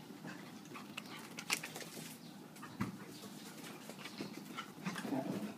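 A dog whimpering faintly, with scattered small clicks.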